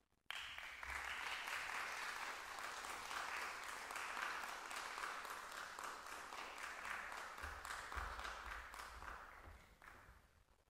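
Audience applauding, starting suddenly just after the start and fading away near the end.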